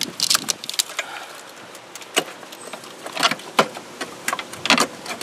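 Plastic wiring-harness connectors and brackets clicking and rattling as they are handled, an irregular run of sharp clicks with a few louder snaps.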